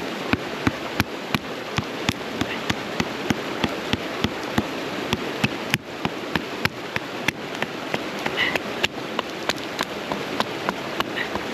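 A knife being batoned through firewood: a piece of wood strikes the back of the blade in a steady run of sharp knocks, about three a second, splitting the wood for the fire.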